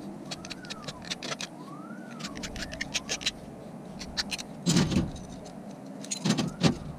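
Hand file rasping along the edges of cut aluminium channel and flat bar to take off the burrs, in short runs of quick strokes. Loose aluminium pieces clink together twice in the second half.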